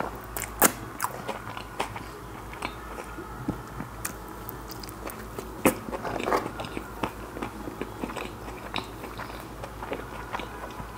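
A person chewing a mouthful of burger close to the microphone: irregular wet smacks and clicks of the mouth, with a couple of louder smacks about a second in and around the middle.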